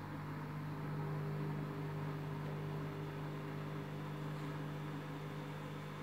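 Candy Grand'O Vita 7 kg washing machine spinning its wet load, the motor and drum giving a steady hum at an even pitch.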